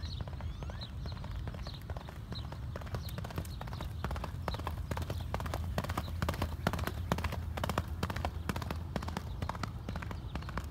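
Hoofbeats of a racehorse galloping on a dirt track under a rider, growing louder as it passes close about six seconds in, then fading as it moves away.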